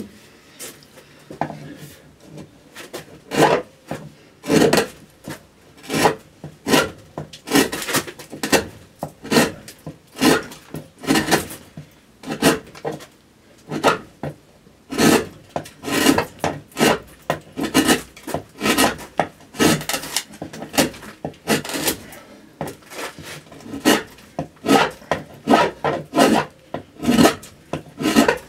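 Gouge cutting into a spruce cello top, repeated short scraping cuts at about one or two a second while the arching is roughed out.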